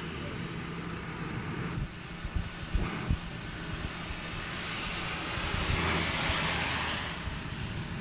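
Heavy rain falling steadily, with a vehicle's tyres hissing over the wet road, swelling past the middle and fading near the end.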